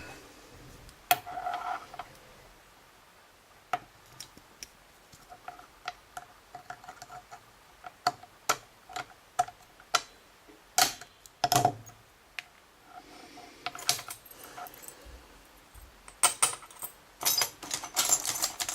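Small metal clicks, taps and light jingling of a pin-tumbler lock cylinder and its key or tools being handled and worked in a vise, some taps briefly ringing. The clicks come scattered, with a busier run near the end.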